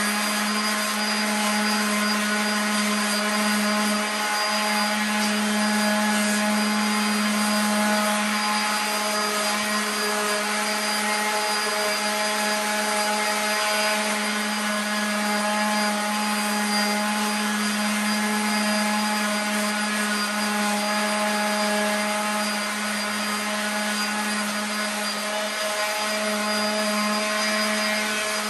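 Corded electric random orbital sander running steadily at full speed against carved Christmas-tree wood: a constant motor whine with the rasp of sandpaper on the wood.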